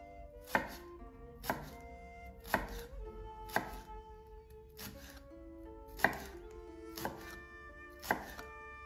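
A BergHOFF chef's knife slicing through a green onion and knocking onto a wooden cutting board. There are about eight evenly spaced cuts, roughly one a second.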